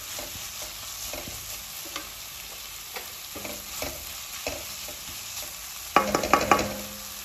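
Chopped onions, capsicum and tomato sizzling in oil in a wok while a spatula stirs and scrapes them, a stroke about every half second. About six seconds in comes a quick run of loud ringing metallic knocks, the spatula tapped against the pan.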